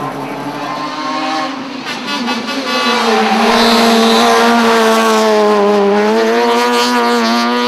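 Fiat Punto rally car's engine revving hard as it comes up the stage at speed: the pitch climbs, drops at a gearshift about two seconds in, then holds high and grows louder as the car comes close, rising again near the end.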